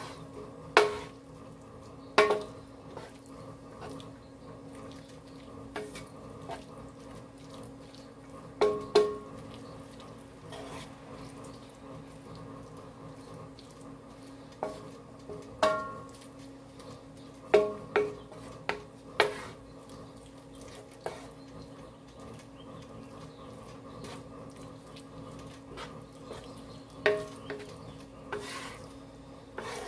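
A wooden spatula stirring and scraping a creamy onion and pepper mixture around a nonstick electric skillet, with about a dozen irregular knocks against the pan, some ringing briefly. A faint steady hum runs underneath.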